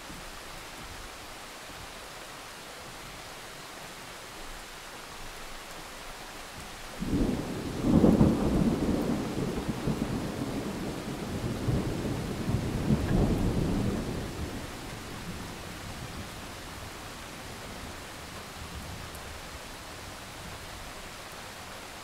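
Steady rain with a peal of thunder: the thunder breaks suddenly about seven seconds in, rumbles with a second swell, and dies away after several seconds, leaving the rain.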